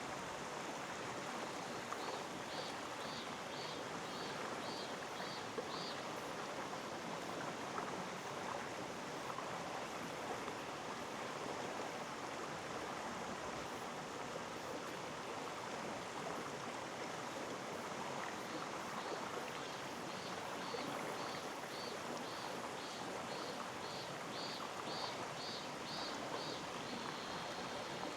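Mountain stream flowing steadily over rocks, a continuous rushing. A high, faint chirping repeats about twice a second in two runs, one early on for a few seconds and a longer one in the second half.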